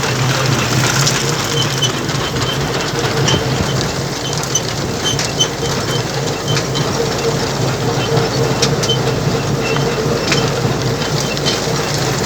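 A harvesting machine running steadily, with a short, high squeak repeating about once or twice a second over its engine hum.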